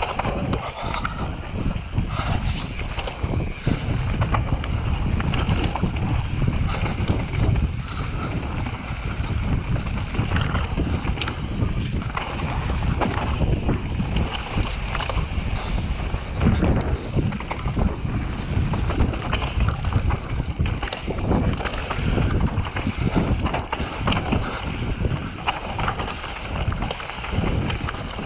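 Cube Stereo full-suspension mountain bike descending a dirt forest trail: a steady rumble of tyres over the ground, broken by frequent knocks and rattles from the bumps, with wind buffeting the microphone.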